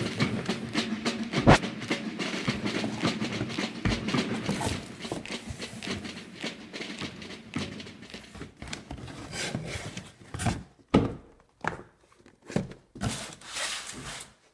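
Cardboard shipping box being opened and handled: rustling and scraping of cardboard with sharp knocks, including a hard knock about a second and a half in. Toward the end come a few separate louder scrapes as the boxed product is lifted out.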